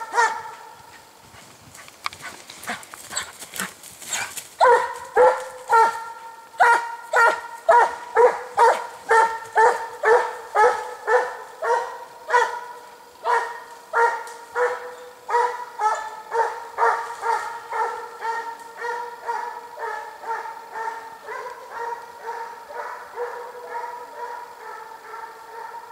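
Russian piebald hound baying on the trail of a mountain hare: a long run of evenly spaced, same-pitched bays, about two a second, starting about four seconds in and slowly growing fainter.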